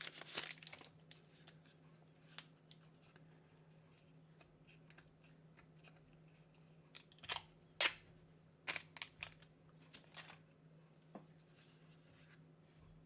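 Plastic packaging crinkling and tearing as it is handled, with scattered small clicks and rustles and a few sharper tearing rustles about seven to eight seconds in.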